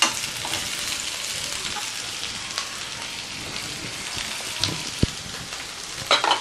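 Chopped vegetables sizzling in hot oil in a non-stick wok as they are stir-fried with a steel ladle: a steady frying hiss with a few knocks on the pan, at the start and again near the end.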